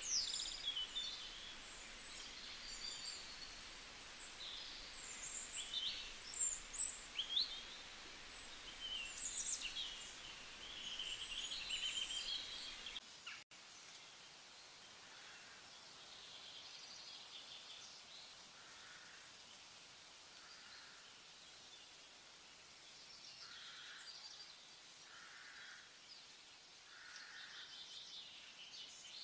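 Birds chirping and calling, many short quick notes, over a steady outdoor background noise. About thirteen seconds in the sound cuts to a quieter background with only faint, softer sounds.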